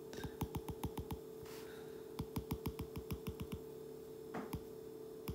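Stylus tip tapping on a tablet's glass screen while short dashes are drawn: two quick runs of light clicks, about eight a second, over a faint steady hum.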